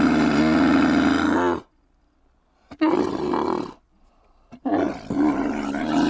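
Dromedary camel calling: three long, low, wavering calls. The first ends about one and a half seconds in, the second comes about three seconds in, and the third begins about five seconds in and runs on.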